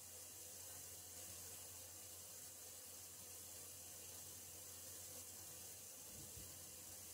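Faint steady hiss of water running through water pipes that are kept running to prevent freeze damage, with a low steady hum beneath it.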